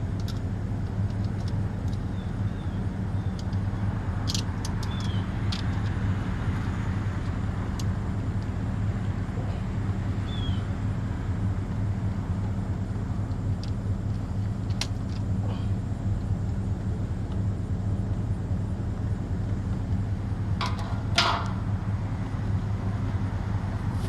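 An engine idling steadily, with scattered light metallic clinks of hand tools; the loudest is a pair of clanks near the end.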